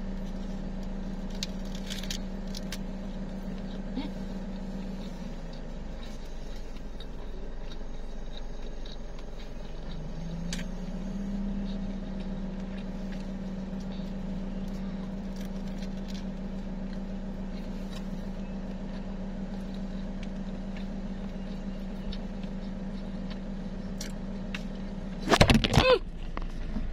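Steady low hum of a car idling, heard inside the cabin; its pitch drops about five seconds in and glides back up about ten seconds in. A few faint clicks of chewing, then loud rustling and knocks of the phone being handled near the end.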